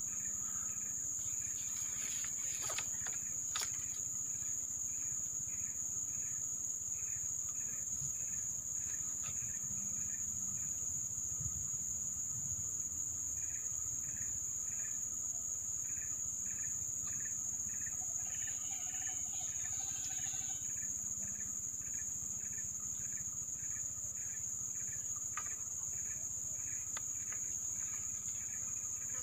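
Forest insects calling in chorus: a steady high-pitched drone with a repeating chirp about twice a second that pauses briefly in the middle. A short call cuts in about two-thirds of the way through, and there are a few faint clicks near the start.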